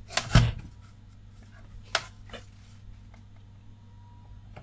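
Multimeter probes being handled and set down on a monitor power supply board: a thump just after the start, then a sharp click about two seconds in and a fainter one just after, over a low steady hum.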